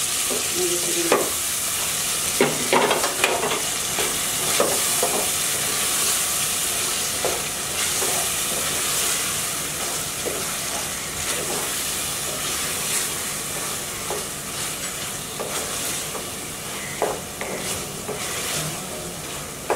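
Coconut strips and spice paste sizzling in hot oil in a metal pan, being fried down, with a steady hiss. They are stirred with a wooden spatula that scrapes and knocks against the pan at irregular intervals.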